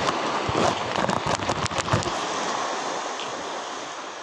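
Surf washing steadily on the shore. In the first two seconds, a quick run of clicks, knocks and rustles comes from hands handling a caught fish right at the phone.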